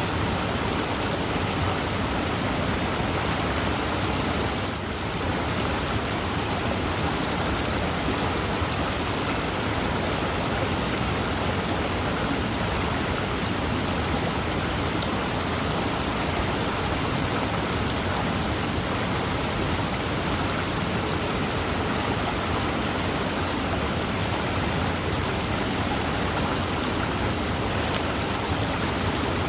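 Fast-moving river rushing: a steady, even wash of water noise, with a brief slight lull about five seconds in.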